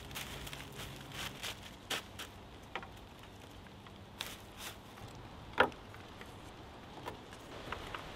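Dry water reed thatch rustling and crackling as bundles are handled and pressed into place, with scattered small clicks and one sharper knock a little past halfway.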